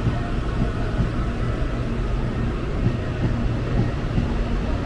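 Electric commuter train running at the station: a steady low rumble with faint humming tones underneath, with no sharp knocks or changes.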